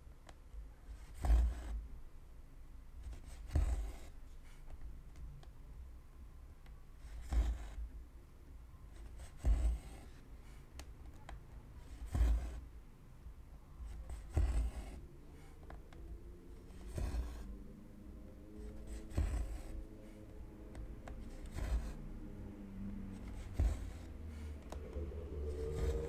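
Needle and two-strand cotton thread pushed and drawn through 14-count cross-stitch fabric held taut in a hoop: soft pokes and rubbing thread-pulls, about one every two seconds.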